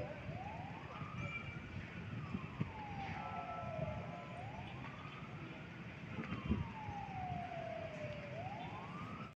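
An emergency vehicle siren wailing, its pitch slowly rising and falling about every four seconds, over the rumble of street traffic.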